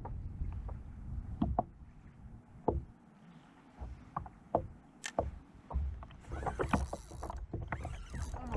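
Fishing kayak being handled: irregular knocks and taps against the hull, over a low rumble of wind and water.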